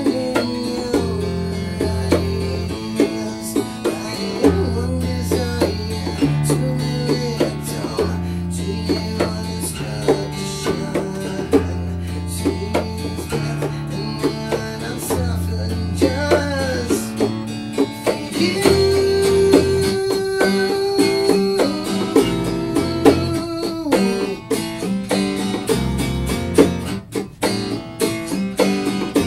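Live acoustic rock band playing: a strummed acoustic guitar over held electric bass notes, with bongos slapped by hand throughout.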